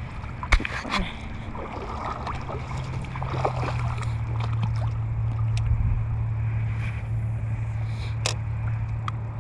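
Steady low motor hum that swells a little in the middle, with a few light clicks and knocks.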